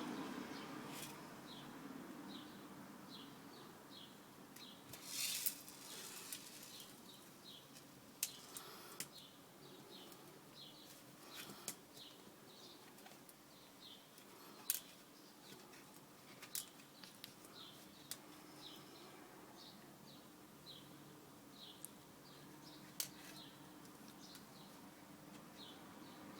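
Small steel differential balls being set by hand into a greased RC diff gear, with scattered light, sharp clicks as the balls and parts touch. A regular series of faint, short high chirps, about two a second, runs behind it.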